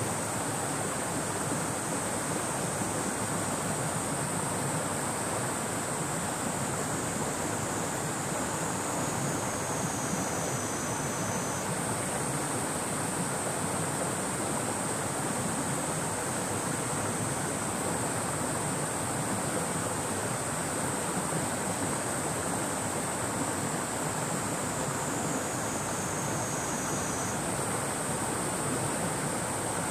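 Steady rushing of the Hozu River's flowing water, with a high, steady drone of cicadas above it that dips slightly in pitch twice.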